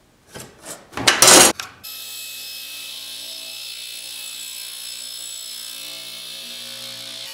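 A few scratchy pencil strokes along a speed square on a pine 2x4, then from about two seconds in a table saw running with a steady whir.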